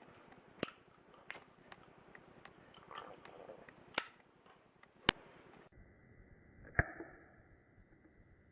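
Zippo lighter's metal lid clicking and clinking as it is flipped open and snapped shut during a hand trick: about six separate sharp clicks, the loudest about five seconds in.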